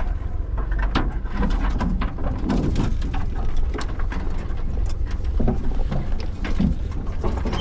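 Cabin sound of a Mitsubishi Pajero crawling slowly over a rough bush track: a steady low engine and drivetrain rumble with frequent short knocks, creaks and scrapes from the body and the bush along the sides.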